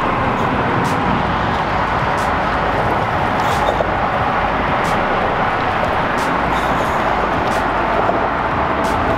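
Steady road traffic from cars crossing a highway bridge: a constant hum of tyres with no break.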